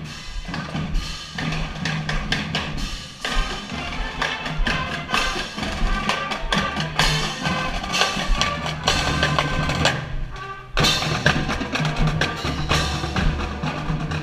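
Marching band playing, with drums and sharp percussion strikes over sustained instrument tones; the music dips briefly near the end, then comes back in.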